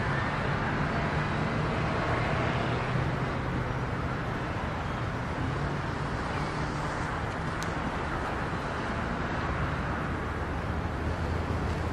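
Steady road-traffic noise with a low engine hum running underneath, and one faint tick about two-thirds of the way through.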